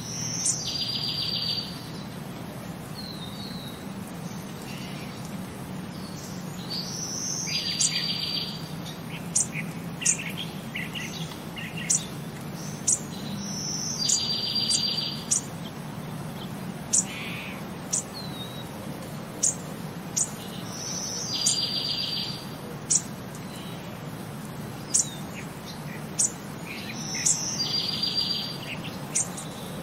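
Birdsong: a short chirp followed by a buzzy trill, repeating at very even intervals of about six and a half seconds, with single sharp chirps in between over a steady low hum.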